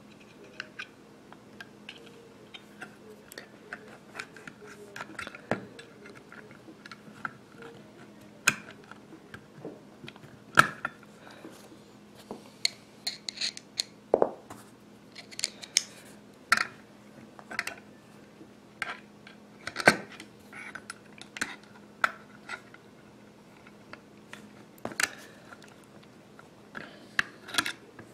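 Irregular small metallic clicks, taps and scrapes of a tool prying at a small spring in the action of a Marlin 39A lever-action .22 rifle, trying to seat it on top of a part, over a faint steady hum.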